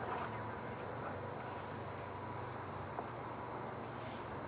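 Insect trilling with one steady, unbroken high-pitched note, over a low background hum, with a couple of faint clicks.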